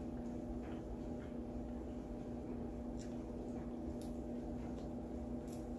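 Quiet eating: a few faint soft clicks and mouth sounds from chewing steak, over a steady low electrical hum in the room.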